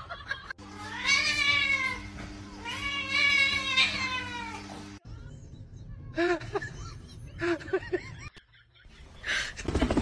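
A cat meowing: two long, drawn-out meows that rise and fall in pitch, then after a pause several short mews.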